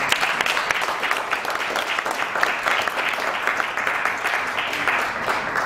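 Audience applauding, a roomful of hands clapping that fades away at the end.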